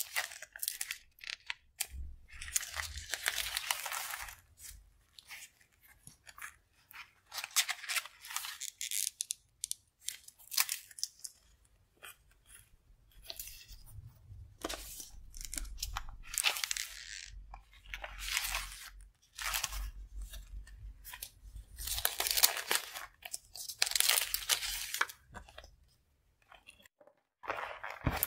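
Clear plastic sticker sheets and paper being handled and shuffled by hand, crinkling and rustling in repeated bursts of a second or two with short pauses between them.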